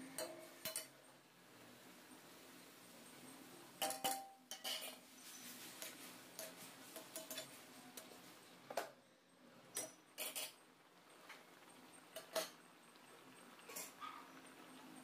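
Metal ladle clinking and scraping against a large metal kadai while a simmering curry is stirred: about ten short, scattered knocks over a faint steady hum.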